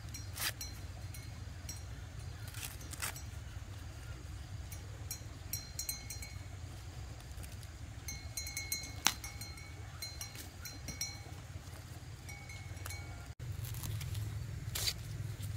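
Ears of corn being husked by hand: the leaves tearing and crackling off the cobs in short sharp rips and rustles, over a steady low background rumble that grows a little louder near the end.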